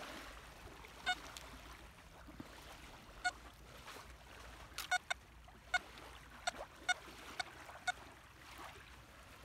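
XP ORX metal detector with an elliptical HF coil giving short, high beeps as the coil is swept over the sand: about nine brief chirps, a few close together in the middle, over a steady low background noise.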